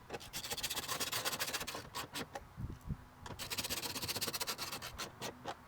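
Socket ratchet clicking rapidly as 10 mm bolts are driven into a truck's rear door panel, in two runs of about a second and a half each, with a few single clicks between and after.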